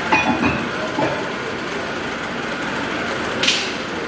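Radial drilling machine running at a gearbox housing, a steady mechanical hum with a high whine in it. Several metal clanks come in the first second, and one sharp metallic clink comes near the end.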